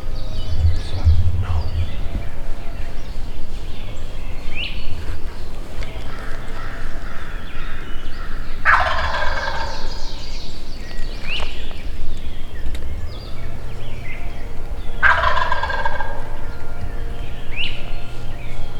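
Wild turkey gobbler gobbling twice, about six seconds apart. Each gobble is a rattling call of a second and a half that drops in pitch.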